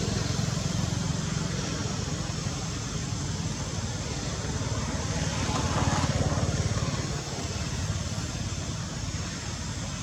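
A motor engine running steadily with a low, even pulse; the sound swells briefly about six seconds in, as if a vehicle passes.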